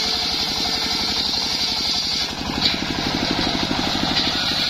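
Engine-driven circular sawmill ripping a mahogany log: the engine runs with a steady fast pulse under the continuous high whine of the blade cutting through the wood.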